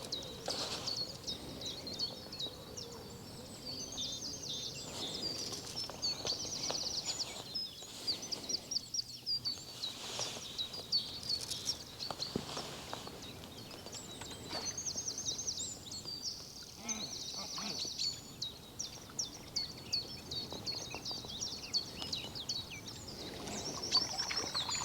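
Small birds singing continuously: many quick high chirps and trills, over a faint steady background hiss.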